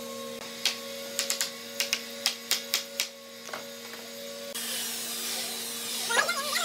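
A quick series of sharp wooden knocks and clacks, about ten in three seconds, as hardwood door-frame and curved panel pieces are handled and fitted together, over a steady hum.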